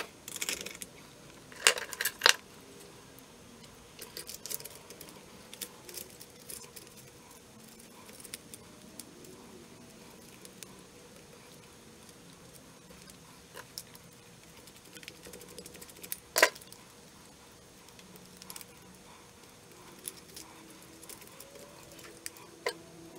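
Chainsaw chain links jangling and metal parts clinking as the guide bar and chain are handled and fitted back onto the saw body, with a few sharp knocks of metal on metal.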